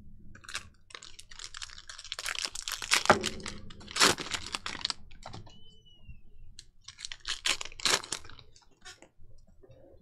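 Cello pack of Panini Prizm football cards being handled: the plastic wrapper crinkling and cards sliding and flicking against each other in quick, irregular clicks, busiest in the first half and again near the end.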